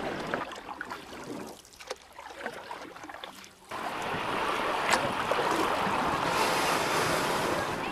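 Rushing noise of wind and open water, dropping low for about two seconds in the middle, then louder and steady from about four seconds in.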